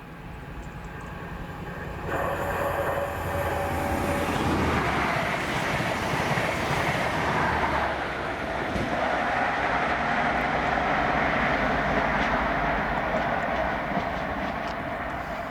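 ScotRail InterCity 125 High Speed Train with Class 43 diesel power cars 43175 and 43182 passing. The engine hum grows louder about two seconds in, then the rumble of the coaches running over the rails holds steady and eases a little near the end.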